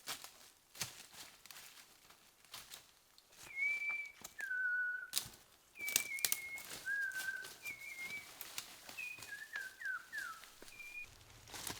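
A series of clear whistled notes, each held for about half a second, stepping between a higher and a lower pitch, then a few quick falling notes near the end. Sharp clicks and rustles are scattered around them.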